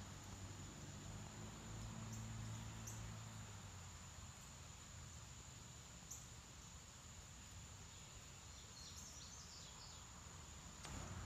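Faint outdoor background: a steady hiss with a thin high whine, broken by a few faint, short, high chirps, with a small cluster of them near the end.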